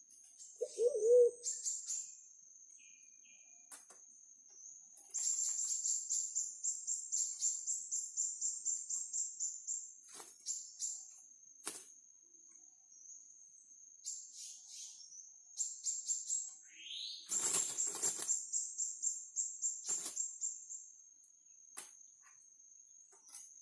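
Forest ambience: a steady high-pitched insect drone, with two long runs of rapid, high pulsing calls. A single short, low coo comes about a second in.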